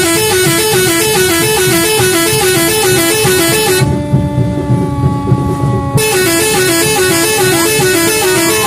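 Telolet musical air horn on a classic fire truck playing its fast repeating tune of alternating notes over the truck's engine rumble. About four seconds in, the tune stops for about two seconds, leaving the rumble and a faint steady tone, then starts again.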